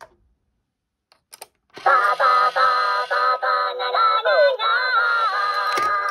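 Minions coin-bank toy powered at 6 V from a bench power supply: after a faint click and a moment of quiet, its small speaker starts playing a high-pitched synthetic Minion singing voice about two seconds in. A short knock comes near the end as the lid snaps shut.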